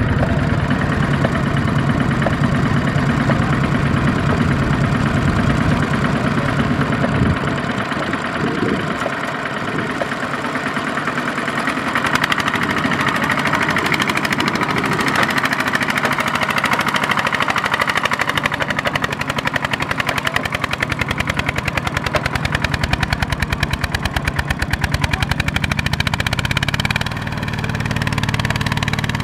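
Single-cylinder diesel engine of a Kubota RT155 walking tractor running hard under load with a rapid, even chugging as it hauls a loaded trailer up a muddy bank. Partway through, the chugging turns harsher and more clattering.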